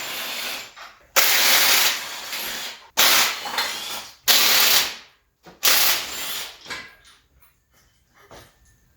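Ratchet strap being cranked tight: about five strokes of the ratchet handle, each a burst of rapid clicking, roughly one every second and a half, then a few faint small clicks.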